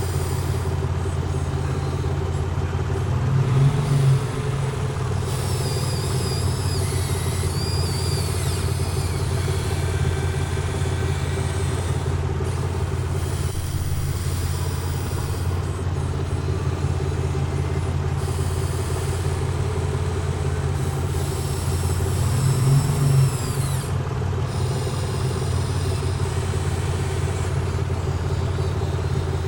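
Excavator engine running steadily, rising briefly under load twice, about four seconds in and again near 23 seconds.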